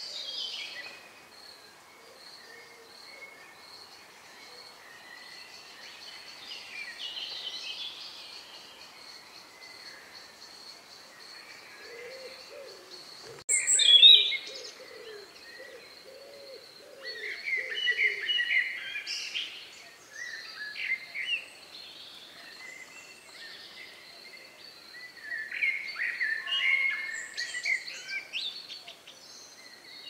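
Songbirds singing at dusk in separate bouts: a short phrase about seven seconds in, a loud sharp burst near the middle, then longer warbling bouts later on. Just before and during the loud burst comes a series of low hooting notes, with a faint steady high tone underneath throughout.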